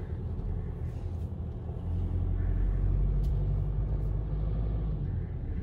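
Car driving slowly, a steady low engine and road rumble with a faint hum.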